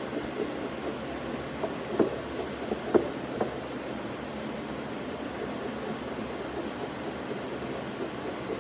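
Steady rumbling mechanical noise with a few sharp knocks, the loudest about two and three seconds in.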